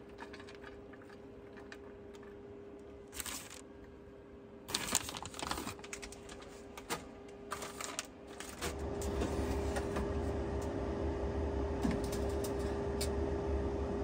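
Bacon bits and shredded cheese sprinkled by hand onto potato slices in a metal loaf pan: a run of light, uneven clicks and rustles. A little past halfway a steady low hum comes on and carries on.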